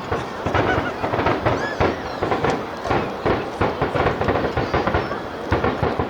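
Aerial fireworks bursting in rapid succession, a dense run of bangs and crackles heard from about a kilometre away, with crowd voices mixed in.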